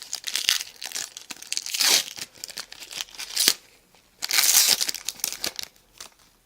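Foil trading-card pack wrapper being torn open and crinkled in the hands, in several short bursts of rustling with a longer crinkle about four seconds in.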